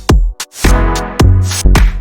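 Electronic dance music with a steady drum-machine beat and heavy bass; the beat drops out briefly about half a second in, then comes back.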